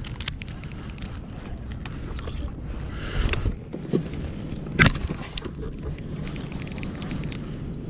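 Steady low wind rumble on the microphone aboard a fishing kayak, with scattered clicks and knocks of gear being handled. The loudest is a sharp knock just under five seconds in.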